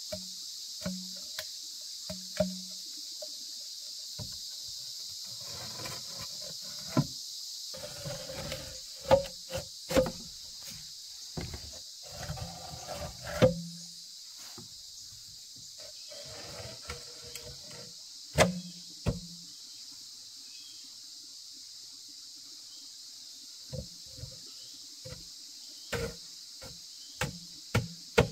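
Steady high-pitched insect chorus, with scattered sharp knocks and several stretches of scraping and rustling laid over it.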